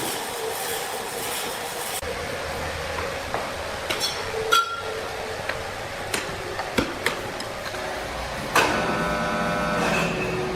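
Steady machinery noise with scattered sharp metallic knocks and clinks, then a loud metal clang about two-thirds of the way through that rings on for more than a second. A steady hum starts near the end.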